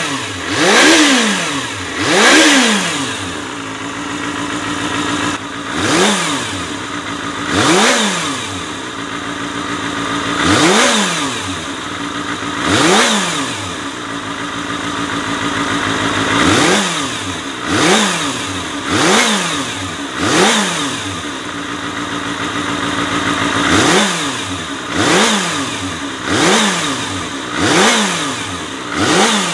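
Kawasaki ZXR250's 250 cc inline-four engine revved repeatedly while standing, about fifteen quick throttle blips that each rise sharply and fall back to idle, with short idles between groups. It is a freshly serviced engine running cleanly.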